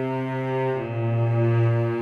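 Background music of low sustained notes, the chord changing a little under a second in.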